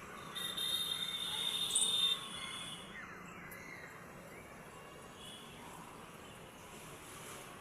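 A steady, high insect trill, loudest for about the first two seconds and then fainter.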